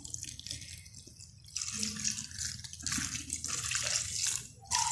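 Thin coconut milk poured from a steel bowl into a clay pot of spiced chicken, the stream splashing onto the meat in uneven spells, fainter at first and stronger from about a second and a half in.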